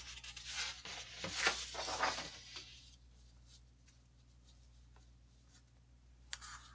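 Soft hissing and rustling noise for about two seconds, then a quiet room with only a low steady hum.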